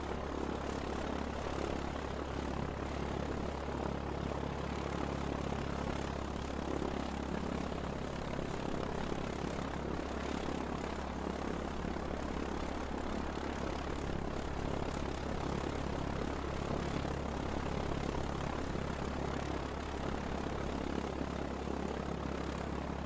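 Propeller airplane engine running steadily: an even drone with a strong low hum under a wide hiss, holding the same pitch and level throughout.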